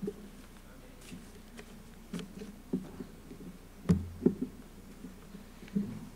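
Handling noise at a lectern picked up by the pulpit microphone: scattered taps and rustles as papers or a book are gathered up, with two louder knocks and a dull thud about four seconds in.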